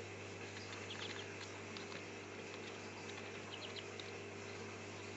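Ducklings giving a few short, scattered peeps over a steady low hum.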